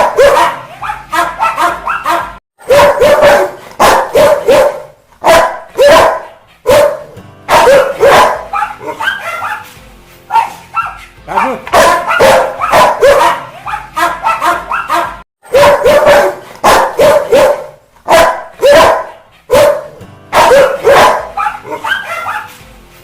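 Rottweiler barking angrily in repeated volleys of rapid barks separated by short pauses. The sound drops abruptly to silence twice, about two and a half seconds in and again near fifteen seconds, as at edit points in a sound-effect track.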